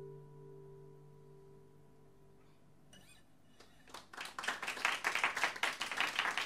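Final chord of an acoustic guitar ringing out and fading away, then, about four seconds in, an audience starts clapping and builds into steady applause for the end of the song.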